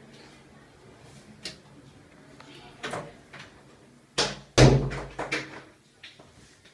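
KDK bathroom exhaust fan running with a steady low hum. Small knocks come through it, then a couple of heavy thumps a little past the middle that die away over about a second.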